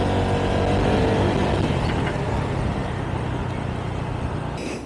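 Motorcycle engine running while riding at road speed, its pitch easing down over the first second or two, then sinking under a steady rush of wind and road noise.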